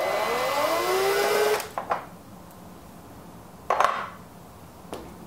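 Cordless drill/driver backing out a screw from the Esatto's rear cover, its motor whine rising in pitch for about a second and a half before stopping. Then a few light clicks and a knock as the rear cover is lifted off.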